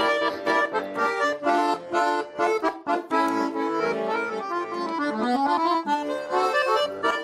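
Russian garmon (button accordion) playing an instrumental passage of a folk song in quick, rhythmic chords and melody, with a rising run of notes about five seconds in.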